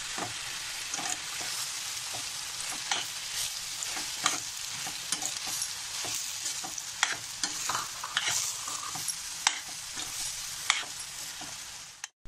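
Chopped ridge gourd and spices frying in oil in a stainless steel kadai: a steady sizzle, with a metal spoon scraping and clinking against the pan as it is stirred.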